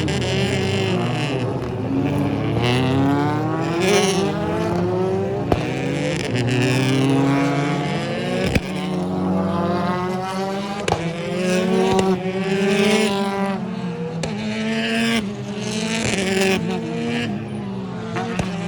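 A pack of British Touring Car Championship race cars, with 2-litre turbocharged four-cylinder engines, running past at full throttle. Several engine notes overlap, each rising in pitch and dropping back again and again as the cars change up through the gears. A few sharp cracks come through among them.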